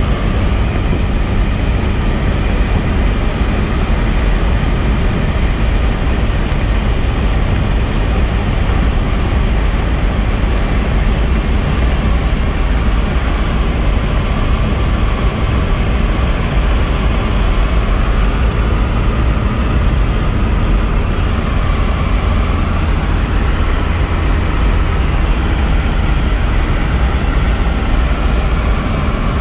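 Cabin noise inside a 1981 Volkswagen Rabbit Convertible cruising at highway speed: steady road and wind noise with the engine running, heaviest in the low rumble.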